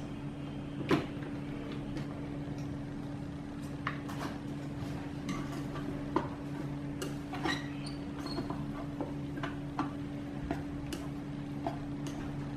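A sharp click about a second in, then light, scattered clicks and scrapes of wooden chopsticks fluffing cooked rice in a rice cooker's inner pot, over a steady low hum.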